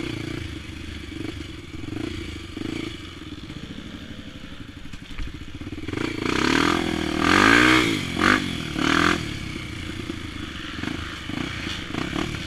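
Single-cylinder dirt bike engine, a Honda XR250 Tornado, running at low revs over rough trail with some clatter. Between about six and nine seconds in it revs up and back down a few times.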